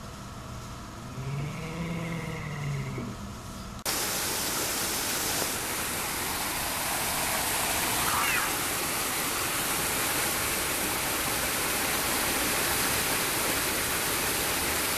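Steady rush of a small rock waterfall, starting abruptly about four seconds in. Before it there is a steady hum with a low moan that rises and falls, and a brief rising squeak comes about eight seconds in.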